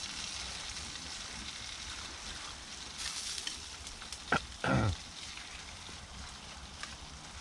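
Curry bubbling and sizzling faintly as it heats, with a brief low voice sound about four seconds in.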